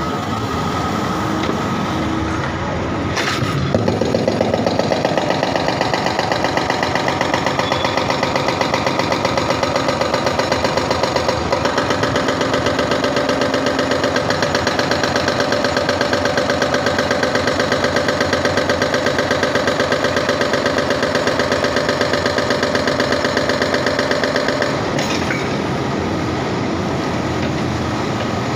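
Hydraulic breaker on a backhoe arm hammering its chisel into the road surface in a fast, even stream of blows, over the machine's diesel engine running. The hammering starts a few seconds in and stops a few seconds before the end, leaving the engine running.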